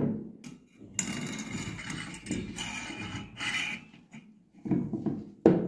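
Air gun's coiled steel mainspring pushed into its steel tube, the coils scraping and rattling against the metal for about three seconds. Two sharp knocks follow near the end.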